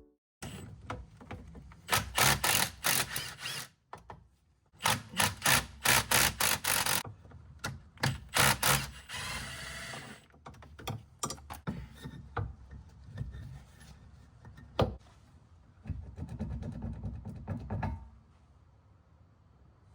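Bursts of rapid metal hammer blows, several a second, on a BMW E36's rear wheel hub and axle as the worn wheel bearing is knocked loose. Between bursts there are scattered knocks and tool clatter.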